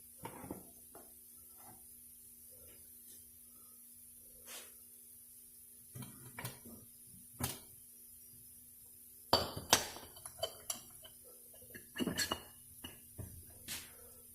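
A screwdriver clinks and taps against the overdrive piston and its retainer in a Dodge 46RE transmission as the piston is nudged into line with its guide pins. It makes scattered light metal clicks, with the loudest pair about nine and a half seconds in and another cluster around twelve seconds.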